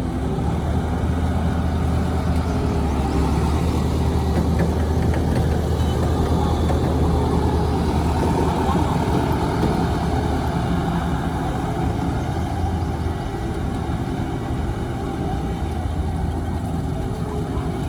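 A heavy engine running steadily, with a continuous low hum and no clear changes in speed.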